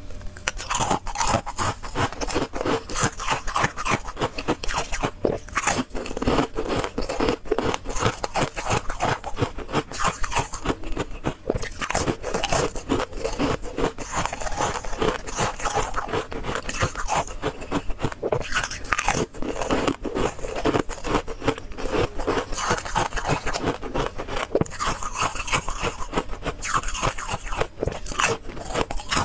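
Thin flakes of ice being bitten and chewed close to the microphone: a continuous run of crisp crunches and cracks.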